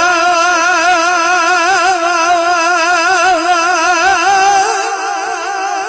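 A male singer holding one long sung note with a steady vibrato, drawn out from the end of a Punjabi Sufi verse, over music.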